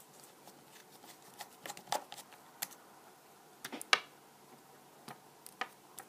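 Faint scattered clicks and small taps of a precision screwdriver on the tiny screws and metal parts inside an iPhone 5 as a dock connector screw is worked out, with a sharper click about four seconds in.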